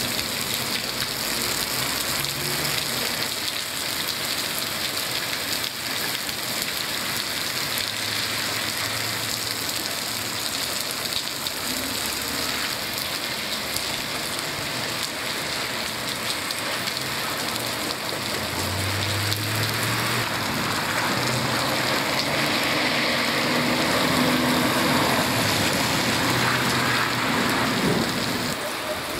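Steady rain falling and splashing on surfaces, growing louder in the second half and easing slightly near the end.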